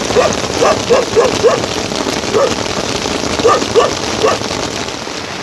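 A dog barks in a run of short, quick barks over steady heavy rain. The barking stops about four seconds in, leaving the rain.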